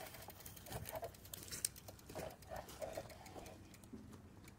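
Faint, irregular footsteps crunching and rustling through dry dead grass and straw.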